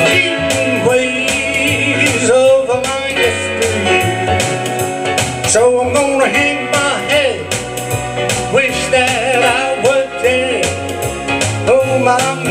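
A country-blues song: a man singing over keyboard and guitar accompaniment.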